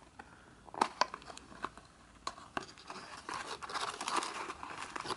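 Paper and cardboard packaging being handled and opened by hand: a few soft taps and clicks at first, then paper rustling and crinkling from about three seconds in.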